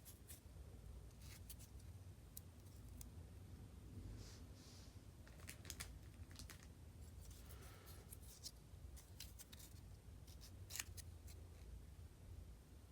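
Faint scattered clicks and a couple of short soft rasps from hands working with nail polish strips, close to the microphone.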